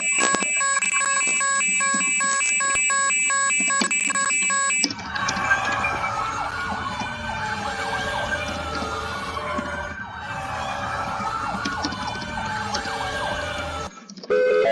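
A repeating pattern of electronic alert tones for about five seconds, then a siren wailing, its pitch rising and falling slowly, until it cuts off shortly before the end.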